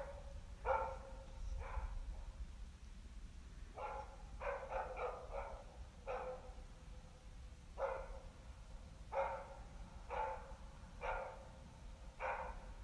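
Yakutian laika bay-barking at a moose it is holding at bay: single barks at irregular intervals, about a second apart, with a quick run of about six near the middle.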